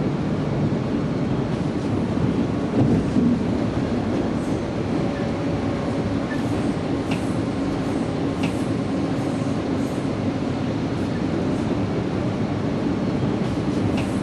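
Munich U-Bahn train running, heard from inside the passenger car as a steady rumble with a few faint ticks.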